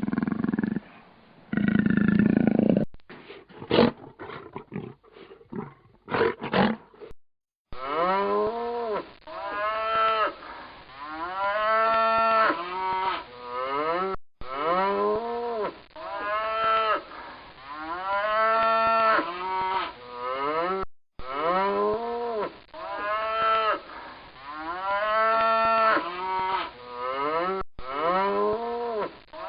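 Cattle mooing: a long run of short calls, about one a second, each rising and then falling in pitch. It comes after a held animal call at the very start and a few seconds of scattered clicks.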